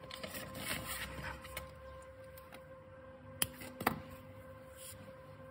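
Hands handling and rubbing crochet yarn, a soft rustle, with two sharp clicks about half a second apart a little past the middle.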